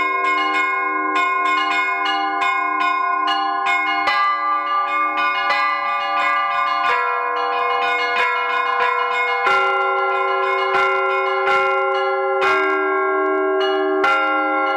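Church bells being rung: small bells struck quickly, about three strikes a second, over the sustained ringing of larger bells. Heavier strikes about four, nine and a half and twelve and a half seconds in change the chord.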